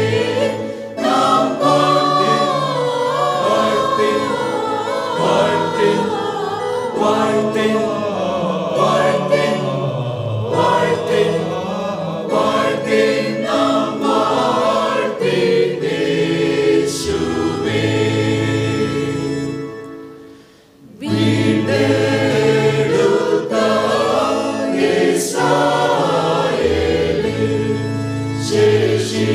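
Mixed church choir of men, women and children singing a Christian song, with a brief break in the sound about two-thirds of the way through before the singing resumes.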